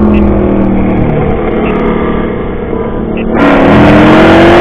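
V8 car engine running steadily at part throttle, then a little over three seconds in it opens up to full throttle: much louder, its pitch climbing as the car accelerates hard.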